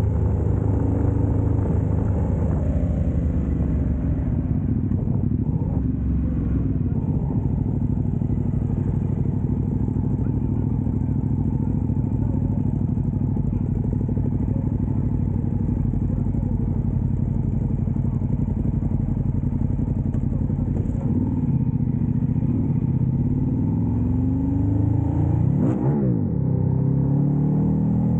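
Ducati motorcycle engines running at idle and low speed, a steady low rumble, with the engine pitch rising a few seconds before the end.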